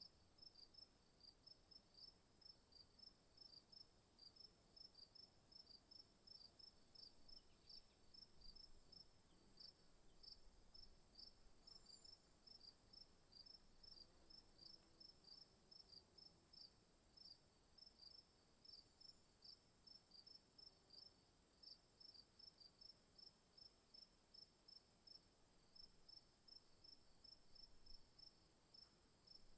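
Crickets chirping: a faint, steady high-pitched trill with evenly repeated chirps, about three a second.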